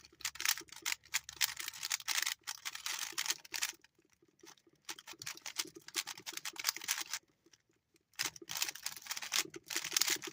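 Rapid plastic clicking and clacking of a stiff 3x3 puzzle cube being turned fast during a speedsolve. It breaks off twice briefly, about four seconds in and again about seven seconds in.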